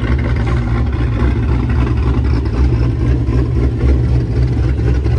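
Pontiac G8 engine idling with a loud, deep, choppy exhaust rumble and no revving.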